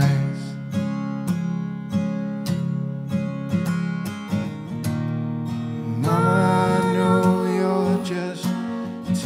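Acoustic guitar strumming chords in a steady rhythm, with a woman singing a held, sliding line from about six seconds in.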